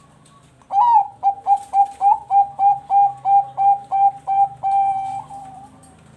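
Zebra dove of the Bangkok perkutut song strain singing: a quick, even run of about a dozen short clipped cooing notes, ending in one longer held note that fades.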